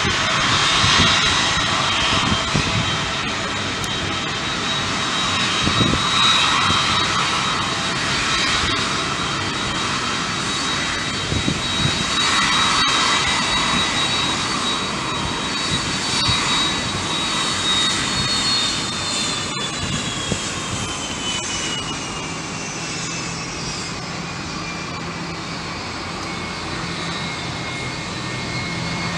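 Jet airliner engines running loud and steady, with a high whine that falls steadily in pitch through the second half.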